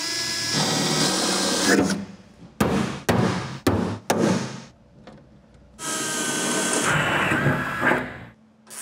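Electric drill boring through the truck bed floor for about two seconds, with a steady motor whine. Then come four sharp hammer strikes on a centre punch, about half a second apart. The drill then runs again for about two seconds.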